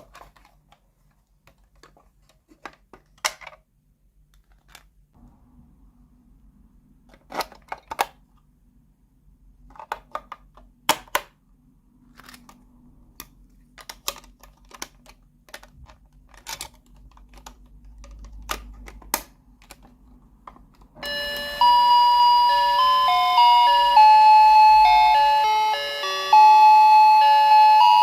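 Plastic toy pieces clicking and tapping as they are handled, then, about three-quarters of the way in, the toy kitchen's electronic sound chip plays a loud beeping melody of stepped notes.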